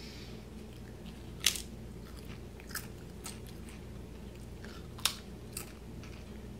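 A Pringles cheddar cheese crisp being bitten and chewed: two sharp crunching snaps about three and a half seconds apart, with fainter crunches of chewing between them.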